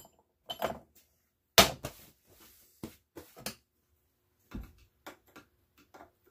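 Irregular short knocks and clinks of metal valve parts and hand tools being handled, the loudest about a second and a half in.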